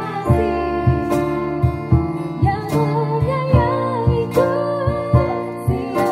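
Live ballad performance: a woman singing a slow melody with vibrato over a small acoustic band, with guitar strumming and held keyboard chords, and a steady soft percussion beat.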